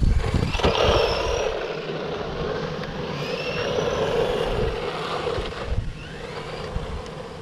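Brushed electric motor of a 1/12-scale Laegendary Tornado RC truck whining under throttle, its pitch rising and falling as it speeds up and slows. A few low thumps come first, and the whine drops away near six seconds.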